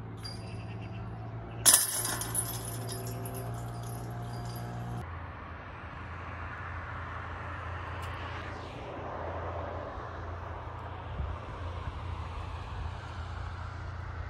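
A disc strikes the chains of a DISCatcher disc golf basket with a sharp clank, and the chains jingle for about three seconds as it drops in. Later a car passes by.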